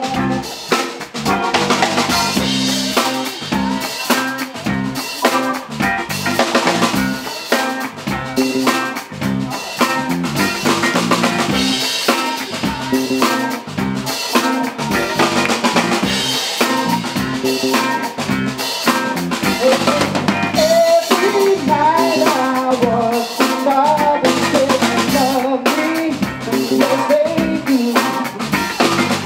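Rock band playing live: a drum kit drives a steady beat under electric guitar, bass and keyboard. About two-thirds through, a wavering melody line comes in over the band.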